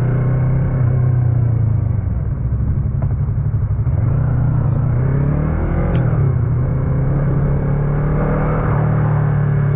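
Yamaha MT-03's 321 cc parallel-twin engine running under way. Its note drops and then climbs again about halfway through, with a single click about six seconds in.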